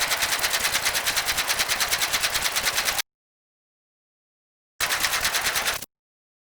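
Rapid-fire sharp cracks in an even run, about nine a second, for about three seconds. After a pause of nearly two seconds comes a shorter run of about a second.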